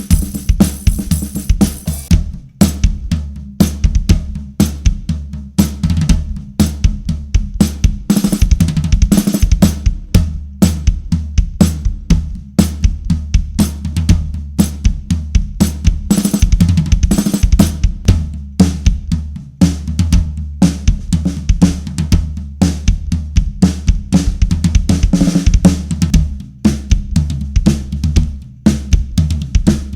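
Drum kit played in a steady groove of bass drum, snare, hi-hat and cymbals, with Big Fat Snare Drum pads laid on the snare and floor tom for a fat, deadened drum sound.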